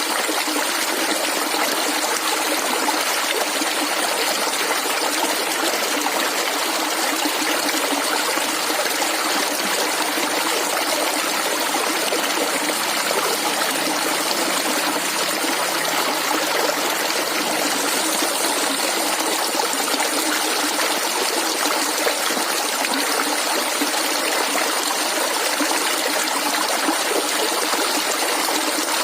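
Shallow stream of water flowing and gurgling steadily, without let-up.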